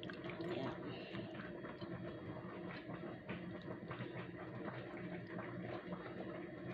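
A spoon stirring thick creamy chicken stew in a glass bowl: faint wet sounds and scattered small clicks of the spoon against the glass.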